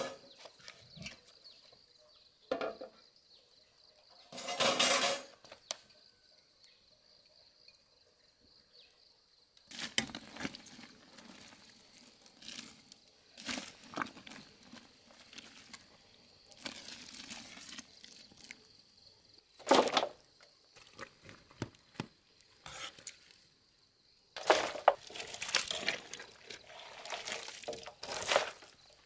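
Scattered clinks, knocks and handling noises of dishes and utensils during food preparation, with quiet gaps between them and a louder stretch of clattering near the end.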